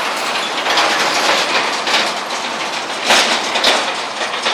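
Loud steady rushing and rattling street noise, with two sharp clanks a little past three seconds in, about half a second apart.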